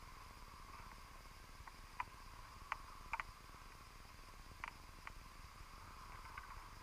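Faint underwater hiss heard through a camera's underwater housing, with a handful of short, sharp clicks scattered through the middle, two of them close together.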